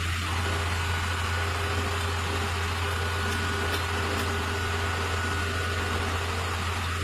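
Concrete pump truck's engine running steadily: a constant low hum with a thin steady whine above it.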